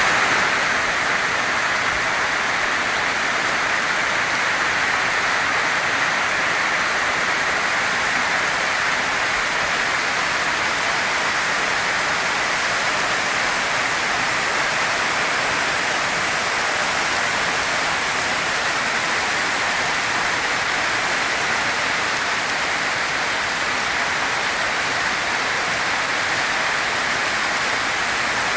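Heavy rain pouring down steadily: a dense, even hiss that holds without a break.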